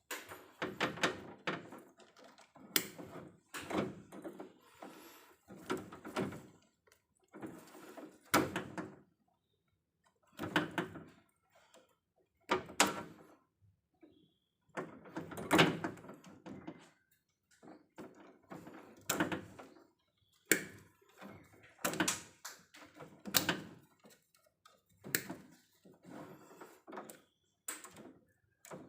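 Irregular knocks and clatter in short clusters every second or two, from hands and tools working on cables in an electrical distribution panel.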